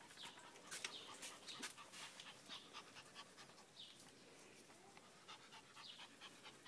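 A Maltese dog panting faintly in short, quick breaths.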